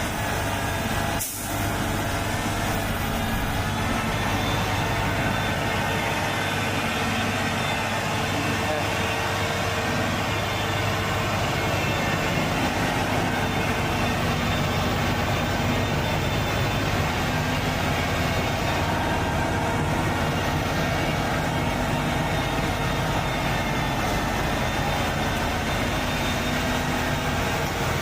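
Logging truck engine running steadily under load, with a brief dip about a second in.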